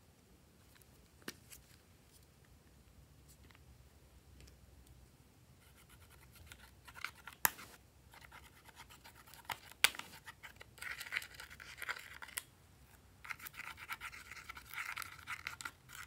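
A plastic spatula scraping pressed eyeshadow out of the pans of a metal compact palette, with scratchy scraping in spurts through the second half and a few sharp clicks. The first half is mostly quiet handling, with a single click about a second in.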